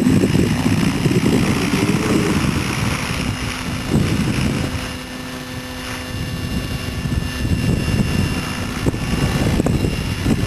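Electric 550-size RC helicopter in flight: a steady motor and rotor whine under rumbling wind noise on the microphone, dipping slightly about halfway through and then coming back up.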